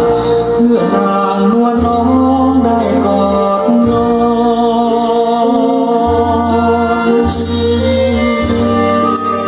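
A Thai love song playing through a homemade speaker under test, in a passage without lyrics: sustained melody notes over a bass line that changes every second or two, with a regular beat.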